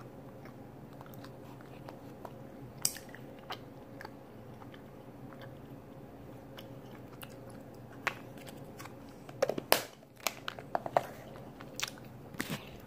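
Faint steady hum with scattered small clicks, then a run of louder clicks and knocks in the last few seconds.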